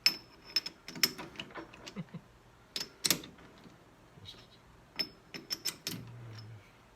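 Irregular metallic clicks and clunks from a lathe's headstock gearing and chuck as it is turned and shifted by hand, with a few quick runs of clicks and a brief low hum near the end.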